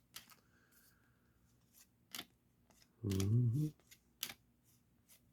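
Baseball trading cards being handled and flipped through, giving scattered light clicks and snaps about every half second to a second. A short murmured voice comes in about three seconds in.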